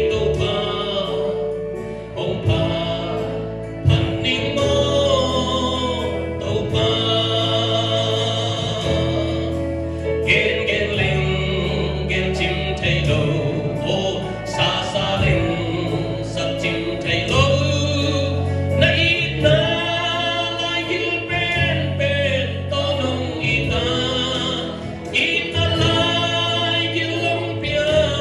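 A man sings a gospel song solo into a handheld microphone through the church loudspeakers, with wavering vibrato on held notes. Behind him, a musical accompaniment plays sustained low chords that change every second or two.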